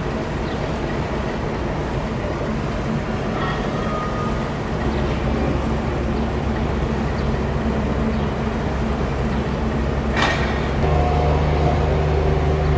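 An engine running steadily with a low hum. About ten seconds in there is a brief sharp squeal, and the engine then runs louder.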